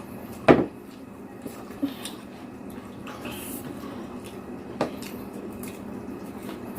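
Tableware knocking during a meal: one sharp clink of a utensil or dish about half a second in, then softer knocks near two and five seconds, over a steady low room hum.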